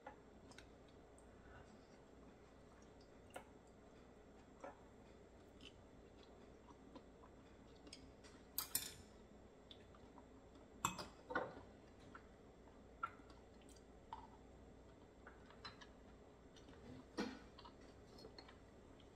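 Scattered light clicks and taps of wooden chopsticks against a glass and of oyster shells being handled, over near silence, with a few louder knocks about nine and eleven seconds in.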